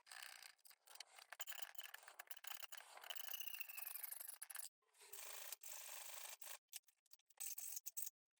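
Scraping and rasping from hand-tool work on the base's bottom plate, chopped into short pieces by several abrupt cuts, more of them in the second half.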